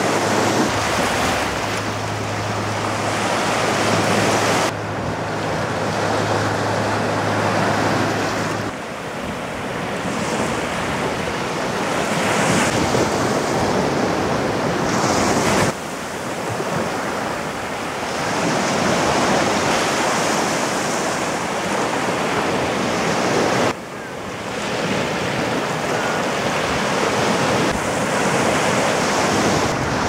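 Ocean surf breaking and washing up a sandy beach, with wind rumbling on the microphone. The sound changes abruptly several times, at cuts in the recording.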